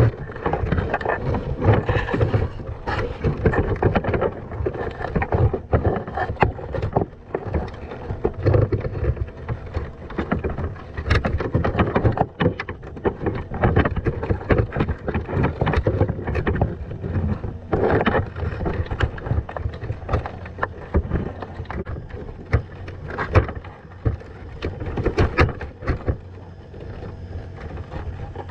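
Underwater sound heard by a camera inside a crab pot: a rough, churning wash of water, with frequent irregular clicks and knocks from Dungeness crabs and the pot's wire mesh moving against the camera.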